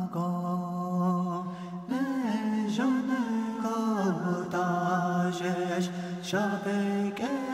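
Background music: a single voice chanting in long held notes that slide from one pitch to the next.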